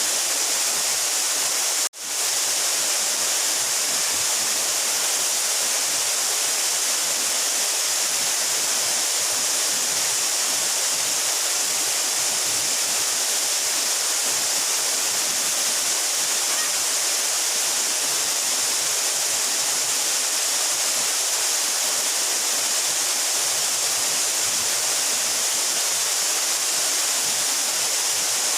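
Steady rush of water from a 12-metre mountain waterfall falling onto its pool, with a brief cut-out about two seconds in.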